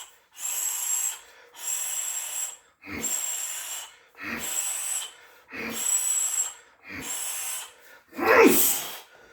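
A series of Muay Thai shin kicks, one about every 1.3 seconds, each a hissing exhale with a dull thud of the shin landing on a heavy padded target. The kick near the end is the loudest.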